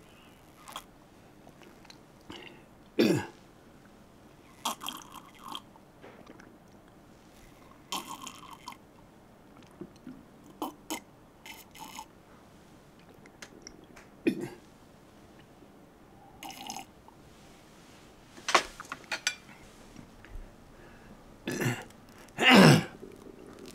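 A person sipping a drink from a glass, with short slurps, swallows and small clicks. Several brief throaty burp-like sounds fall in pitch, the loudest near the end.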